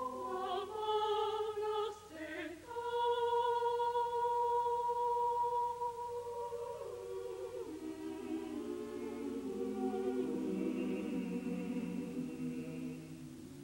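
Mixed high-school choir singing a cappella: a long held chord, then the voices move downward and the sound fades near the end.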